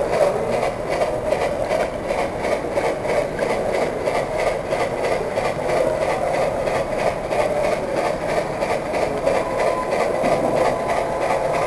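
Model train running along the track: a steady mechanical whir from the locomotive's drive and the wheels rolling on the rails, with a fast, even pulsing throughout.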